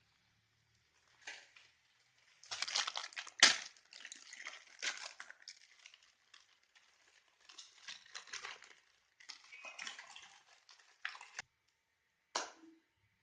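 Irregular crackling and crunching noises from handling during food preparation, in short ragged bursts, with one sharp click about three and a half seconds in.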